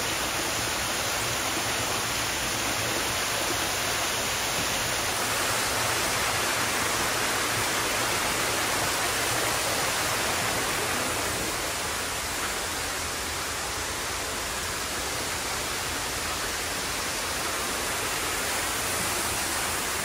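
Steady rush of water from a waterfall.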